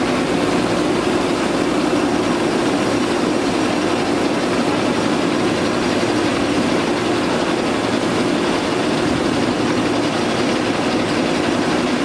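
A steady, unchanging mechanical drone, like an engine running at a constant speed.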